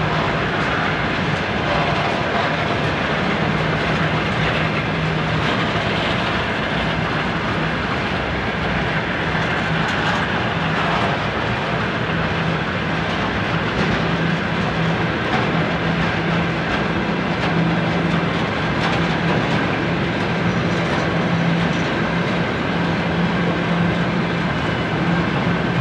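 Railway tank cars of a freight train rolling past, their wheels clicking over the rail joints in a continuous, steady rolling noise, with a low hum that comes and goes underneath.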